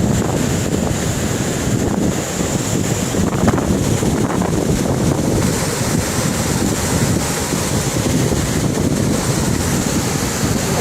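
Steady roar of rushing flash-flood water, with wind buffeting the microphone.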